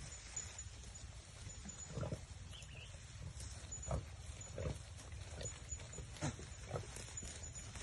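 Goats making short, low calls, about six of them spaced a second or so apart.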